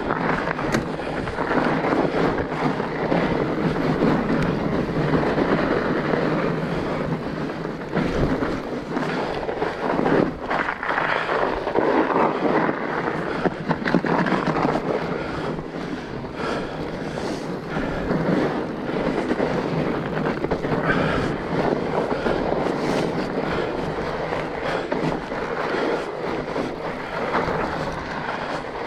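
Fat bike being ridden: a steady rolling and rumbling noise from the wide tyres on the trail, with many rattles and clicks from the bike over bumps, and wind on the microphone.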